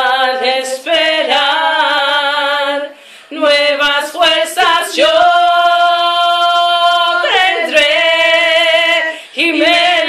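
Three women singing together a cappella in Spanish, holding long notes with short breaks for breath.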